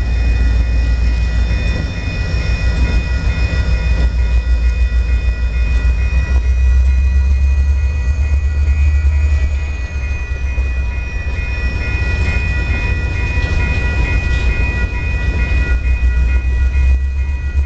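A freight train passes a grade crossing. Portland & Western diesel-electric locomotives rumble by, then boxcars roll behind them, and the loudness eases a little near the middle. A crossing bell rings steadily at an even beat throughout.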